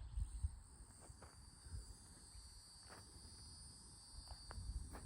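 Faint, steady high-pitched insect chorus of crickets or similar insects, with a few soft clicks and a little low rumble near the start.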